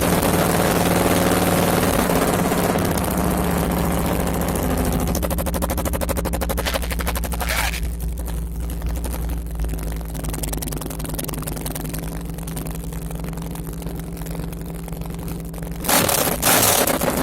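Harley-Davidson V-twin engine idling steadily just after being started, with an even pulsing beat; the idle eases down a little after about five seconds. Near the end the throttle is blipped in short loud bursts.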